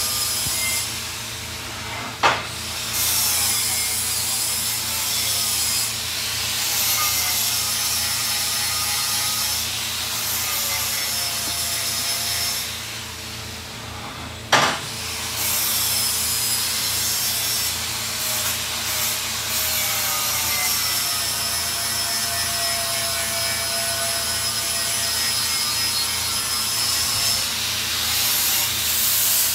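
Continuous scraping and rubbing, with faint wavering squeaks, broken by two sharp clicks: one about two seconds in, the other about halfway through.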